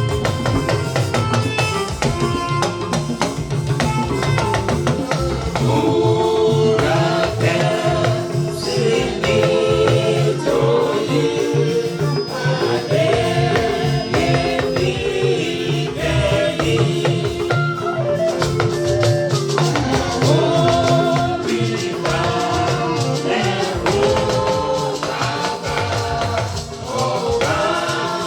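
Congregation singing a hymn together, accompanied by a steady percussion beat with drums and tambourine or rattles.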